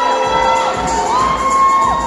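Crowd cheering with long, shrill held shrieks that slide up and down in pitch, over background music.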